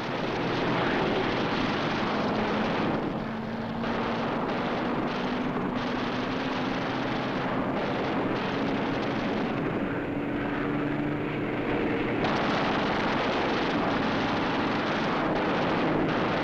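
Propeller aircraft engines in a steady drone, a hum that rises slowly in pitch under a dense rushing noise, on a 1940s optical film soundtrack.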